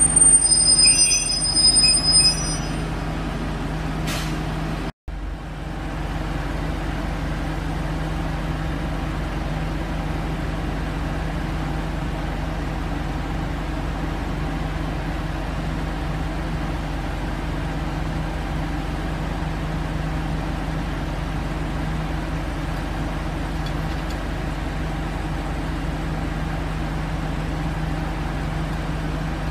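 JR Shikoku 1000 series diesel railcar coming to a stop with a brief high squeal of wheels and brakes. After that its diesel engine idles steadily with a low hum. The sound cuts out for a moment about five seconds in.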